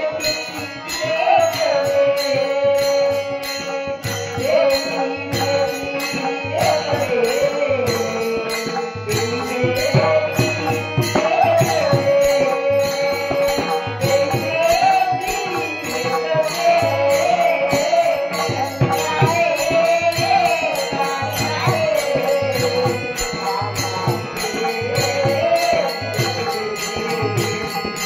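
Marathi devotional bhajan music, a gaulan: an ornamented melody over a steady drone, with a regular drum beat and jingling hand percussion throughout.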